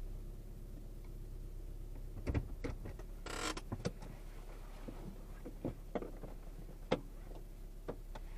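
Car cabin sounds as the car comes to a stop: a low, steady engine hum, scattered small clicks and knocks, and a short rushing noise about three seconds in.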